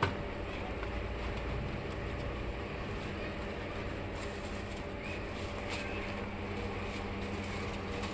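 Steady background hum with a constant low tone and even noise, like a running motor or nearby traffic.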